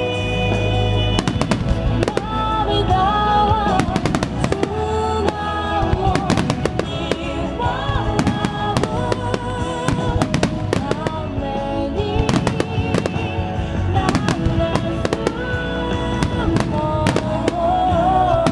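Aerial fireworks bursting and crackling in rapid succession over loud music with a melody, played over loudspeakers for a fireworks show set to music.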